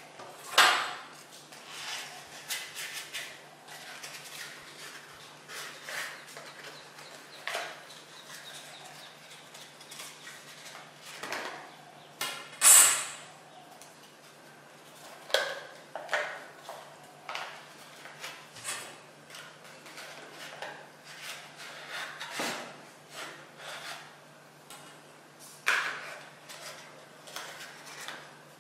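Stiff drawing-paper sheet being handled and creased into shape by hand: irregular rustles and crinkles, with a few louder crackles.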